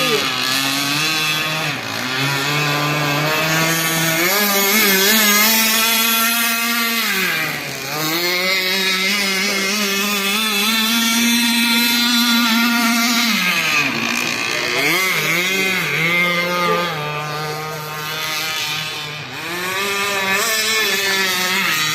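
Radio-controlled catamaran boat's motor running hard with a high buzz. The pitch holds, then drops and climbs again several times as the throttle is eased off and opened up.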